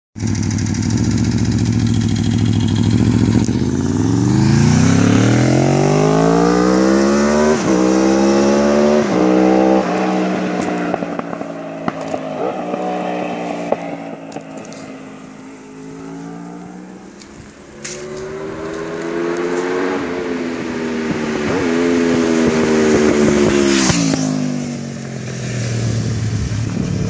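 Aprilia RSV4 Factory's V4 engine through an Akrapovic slip-on exhaust, echoing. It idles at first, then revs hard up through several gear changes as the bike pulls away and fades into the distance. It rises again as the bike comes back and settles to idle near the end.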